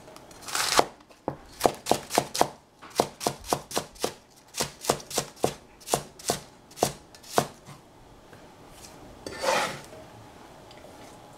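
A cleaver slicing Belgian endive on a cutting board, about three quick chops a second, which stop after some seven seconds. A brief scrape follows near the end.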